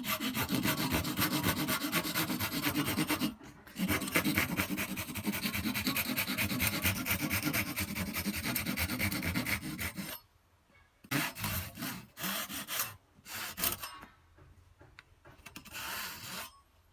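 Small hand saw cutting a groove into a bamboo chopstick, fast back-and-forth strokes. It pauses briefly about three seconds in, saws on steadily until about ten seconds in, then comes in a few short bursts of strokes.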